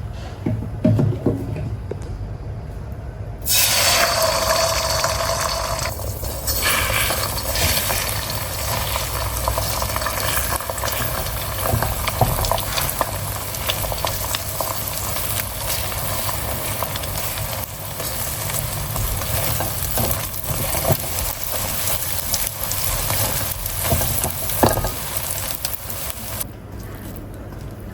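Chicken fried rice sizzling in a hot pan. The sizzle starts suddenly a few seconds in, loudest at first, and is dotted with the clicks and scrapes of stirring. It cuts off near the end.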